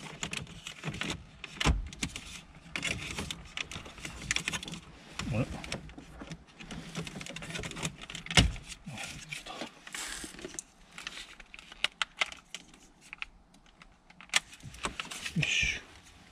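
Plastic interior trim around the centre console and navigation unit of a 30-series Toyota Prius being worked loose by hand: a busy run of small clicks and rattles, with a couple of louder knocks, as the panels are pried and the clips let go.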